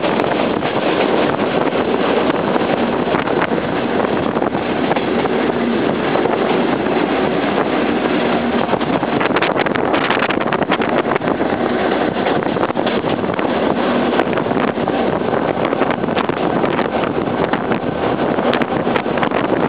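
Steady, loud running noise of a vehicle in motion, with wind on the microphone.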